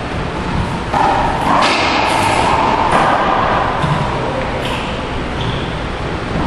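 A few sharp knocks of a racquetball being hit and bouncing, echoing around the enclosed walled court, the strongest about a second and a half and three seconds in.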